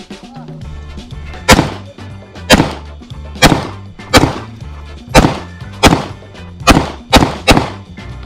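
9mm pistol fired nine times, one shot about every second, with the last few coming closer together; each shot is sharp with a short ringing tail. Background music runs underneath.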